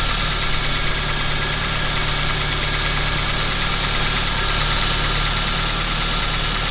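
Ford C-Max petrol engine with an LPG conversion idling steadily while an aerosol spray can hisses continuously over the intake manifold. The idle does not change under the spray, so the sprayed spot is not where the engine is drawing false air.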